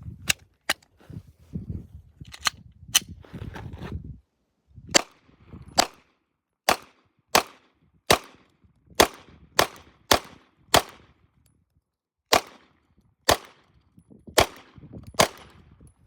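Glock 19X 9mm pistol being fired: about seventeen single shots at an uneven pace, roughly one every half second to second and a half, with short pauses between strings.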